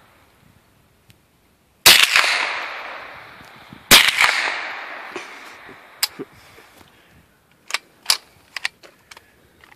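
Two shots from a Ruger SR22 .22 LR semi-automatic rifle, about two seconds apart, each trailing off in a long echo. Then several light clicks as the rifle and its drum magazine are handled.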